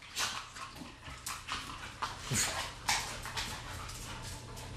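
American bulldog whimpering in short, scattered sounds, with its paws scratching and tapping against the television.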